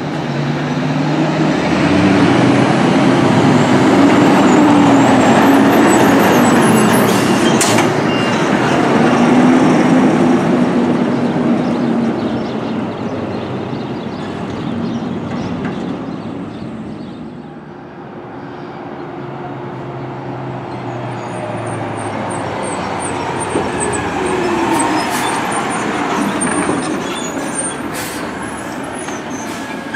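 Heavy garbage trucks driving past close by, their engines loud for the first ten seconds or so, fading, then a second truck's engine building up again in the last third as it pulls past.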